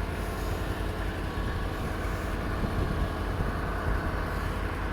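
Engine running steadily at idle, a constant low rumble with no change in speed.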